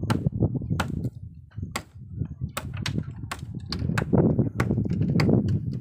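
Bamboo roof-frame poles knocking and creaking as people climb and work on them: a dozen or so sharp, irregular clicks and knocks. Underneath is an uneven low rumble of wind on the microphone.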